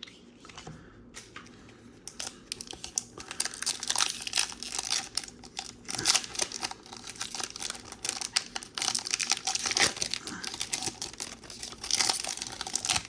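A Pokémon trading-card booster pack's wrapper crinkling and tearing as it is handled and opened. A few light clicks of card handling come first, then about three seconds in the crinkling grows loud and keeps up in several bursts.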